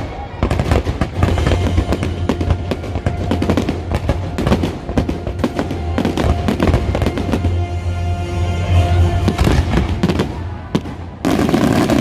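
A nighttime fireworks show: many fireworks bangs in quick succession over loud show music, swelling louder near the end.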